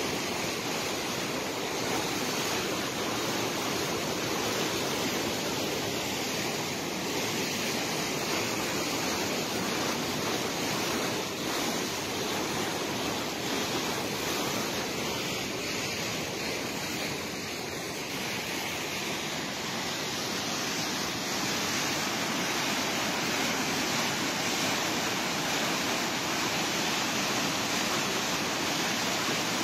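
Steady rushing of a river swollen by heavy rain, flowing fast past a bridge pier, with rain starting to fall again.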